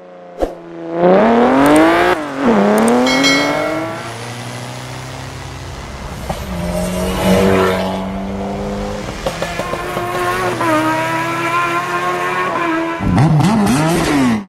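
Car engine sound effects: an engine accelerates hard, its pitch climbing, dropping at a gear change about two seconds in, then climbing again. A steadier engine note follows, and near the end comes a quick run of revs rising and falling. There is a sharp click just after the start.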